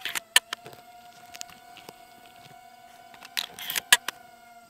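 Sharp clicks and rustling as a Mossberg Shockwave shotgun is handled and shouldered, two clicks standing out, one just under half a second in and one near the end. Under them runs a faint steady whine from the hovering FPV drone. No shot is fired.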